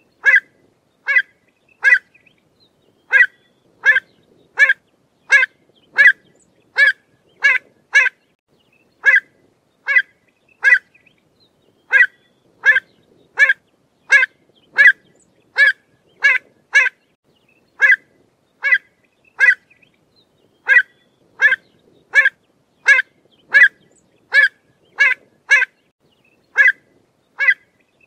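Pied avocet calling: short, sharp 'kluit' calls repeated about every three quarters of a second, in runs of several calls with brief pauses between runs.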